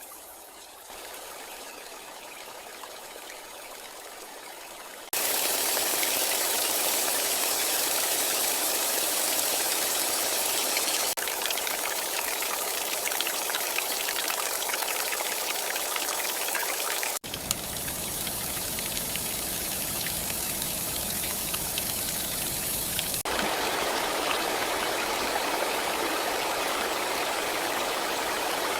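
Steady rushing water ambience with a hiss, made of sections that change abruptly about five, eleven, seventeen and twenty-three seconds in; it is quiet for the first few seconds and louder after that.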